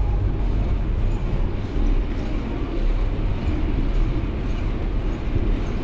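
Steady low rumble of a moving vehicle's running noise.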